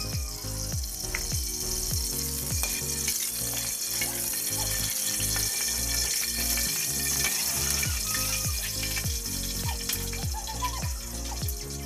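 Food sizzling in hot oil in a wok: a steady, even hiss as it fries and is stirred. Background music with a deep, steady beat plays underneath.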